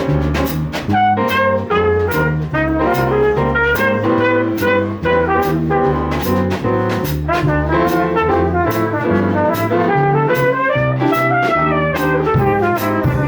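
Jazz orchestra playing live, with brass leading over a steady beat.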